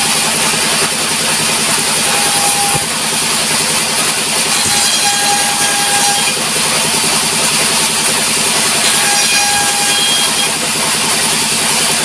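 Sawmill band saw running steadily with its drive engine droning, as planks are fed through the blade by hand. A short whine rises out of the drone three times while boards are being ripped.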